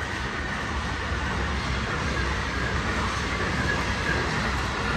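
A train passing by, its noise holding steady.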